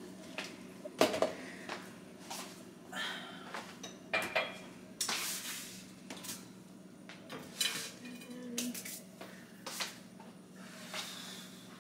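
Kitchen clatter: scattered light knocks and clicks of dishes and utensils being handled on the counter, over a steady low hum.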